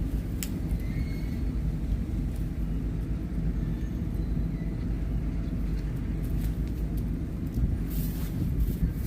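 Boat engine running steadily, a low drone, with a short click about half a second in.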